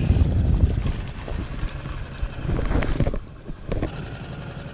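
Wind buffeting the microphone in a low, uneven rumble over an open boat on choppy water, easing briefly about three seconds in.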